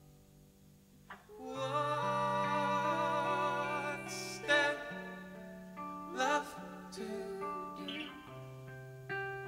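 Live band music: soft sustained guitar notes, then from about a second and a half in a fuller passage with wordless singing in vibrato over held low notes, and a few sharp accents.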